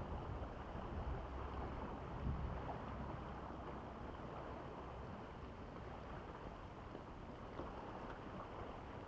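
Rocky seashore ambience: a steady wash of calm sea against the rocks, with low wind rumble on the microphone that eases after the first two or three seconds.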